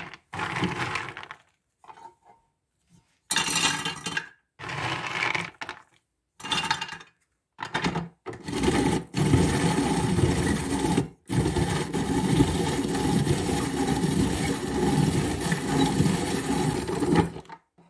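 Roasted hazelnut kernels being ground in a hand-turned rotary drum grater, a crunchy grinding that comes in short spurts at first and then runs almost steadily from about eight seconds in, with two brief pauses.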